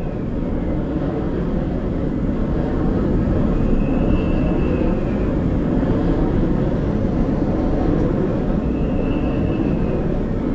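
Wind turbine noise heard from about 100 m, played back through loudspeakers in a listening lab: a loud, steady low rumble with a faint higher swell that rises and falls twice, about five seconds apart.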